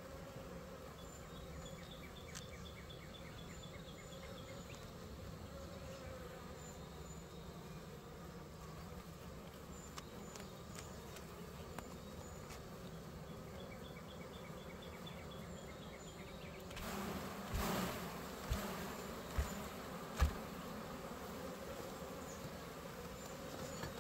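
A swarm of agitated honeybees buzzing steadily around an open hive. About three-quarters of the way through there is a rustle, then three dull thumps.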